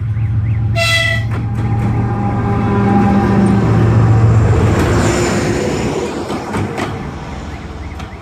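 GE TE33AC diesel locomotive running light passes close by. A short horn blast sounds about a second in. Then the deep drone of its V12 diesel engine is loudest as it passes, about four seconds in, and fades with wheel clicks as it moves away. A level-crossing warning signal beeps rhythmically in the first moment.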